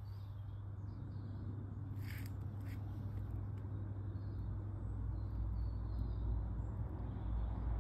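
Outdoor background: a steady low rumble with faint bird calls, and a couple of short sharp sounds about two seconds in.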